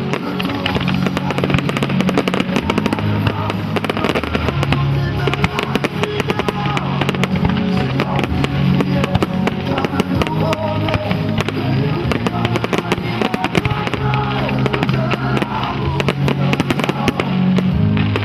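Fireworks going off in quick succession, a dense run of pops and crackles, over a steady music soundtrack.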